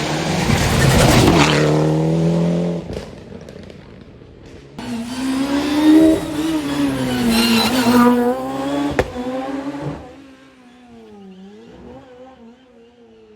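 Rally car engines at full throttle, passing close by: one car is loud for the first few seconds, then a second revs up and down through gear changes and fades away near the end.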